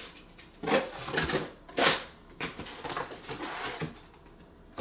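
Camera-kit packaging being handled: a string of short rustles and scrapes as box and wrapping are moved, the loudest about two seconds in.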